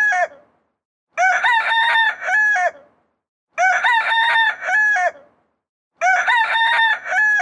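Rooster crowing: three identical cock-a-doodle-doo crows, each about a second and a half long and about two and a half seconds apart, after the end of an earlier crow.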